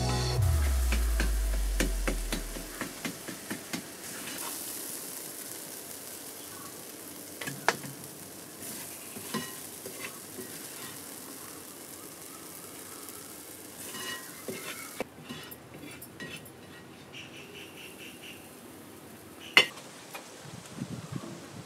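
Food sizzling in a large metal pan over a wood fire, stirred and scraped with a wooden spatula, while background music fades out in the first few seconds. About two-thirds of the way in the sizzling stops, leaving quieter outdoor ambience with one sharp knock near the end.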